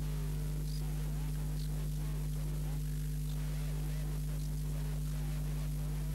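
Steady electrical mains hum with a constant hiss, with faint indistinct wavering sounds beneath it.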